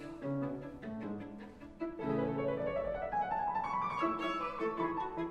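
Classical chamber music for bowed strings and piano, with a run of notes climbing steadily in pitch through the middle.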